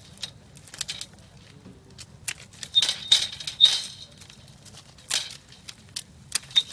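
Hand pruning shears snipping dormant grapevine canes: an irregular run of sharp metallic snips and cracks, the loudest cluster about three seconds in, with the cut canes rattling against the wire.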